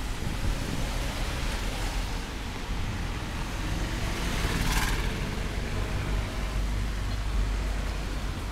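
Street traffic: vehicles running by with a steady low rumble, and a brief hiss around the middle, as from tyres on a wet road.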